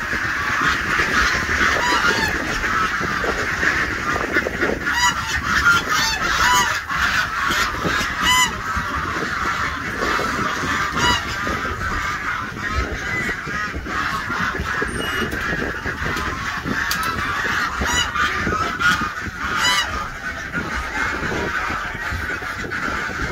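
A flock of penned domestic waterfowl calling, many loud overlapping calls at once, with busier bursts of calling twice. The birds are clamouring at feeding time, after their grain and rice.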